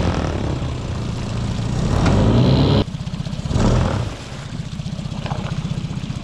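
Small outboard motor running under throttle, then dropping abruptly to a slower, evenly pulsing idle a little under three seconds in. A brief rush of churned water comes about a second after the drop.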